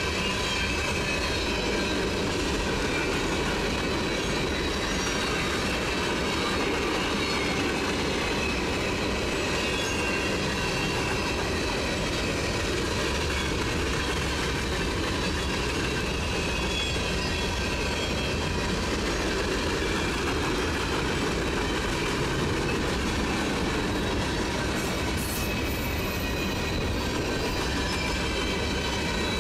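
Freight train of open-top gondola cars rolling steadily past at close range: a continuous rumble of wheels on rail, with faint high-pitched wheel squeal.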